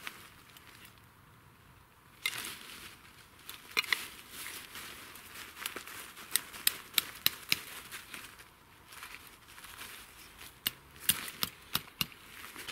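An axe knocking a tent stake into the ground at a tarp corner: sharp taps in short runs of two to five, about three a second, with the tarp fabric rustling between them.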